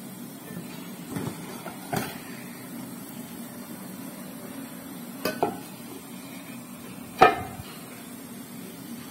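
Metal pot lid and plate clattering on a steaming saucepan as the cover is handled and lifted off the steamed pitha. A few knocks come early and midway, and one loud clank about seven seconds in, over a steady low hum.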